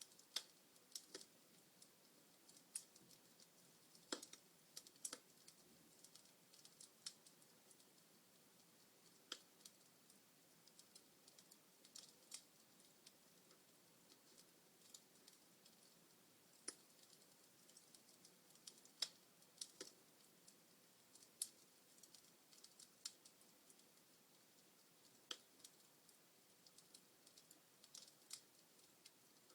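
Wood fire crackling in a fireplace: irregular sharp pops and snaps, a few louder ones, over a faint soft hiss of the flames.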